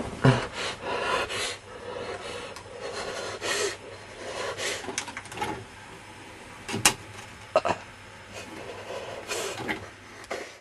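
Rustling handling noise, then a few sharp plastic clicks as hands work the front of a VCR. The loudest click comes about seven seconds in.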